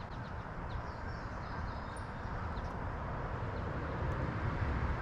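Steady outdoor background noise, heaviest in the low end, with a few faint bird chirps in the first couple of seconds.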